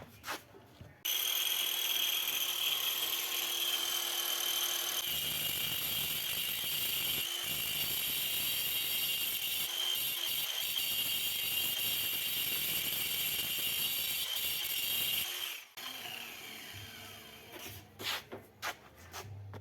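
Angle grinder running at full speed with a high whine. Near the end it is switched off and its disc spins down in a falling tone, followed by a few light knocks.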